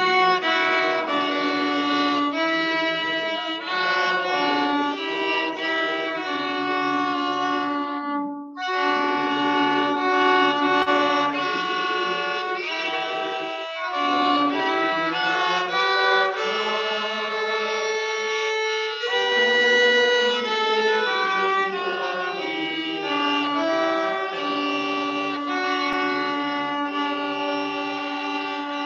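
Two violins playing a melody together as a duet, in held notes, with short breaks between phrases about eight and fourteen seconds in.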